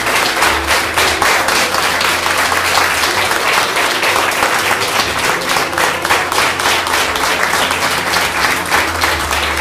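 Audience and performers applauding: many hands clapping densely and without a break.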